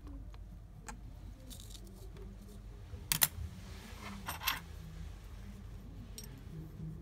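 Metal key blanks clinking against each other as they are picked up and handled from a pile on a wooden table, with a sharp clink about three seconds in and a quick run of clinks a second later.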